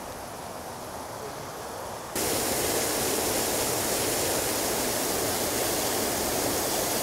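Water from a small river cascade pouring over a ledge into a pool, a steady rush that jumps louder about two seconds in.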